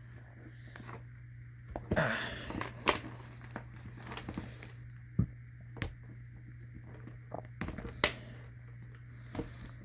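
Scattered light clicks and taps and a brief rustle of a gas mask's rubber head harness and its buckles being unhooked and handled, over a steady low hum.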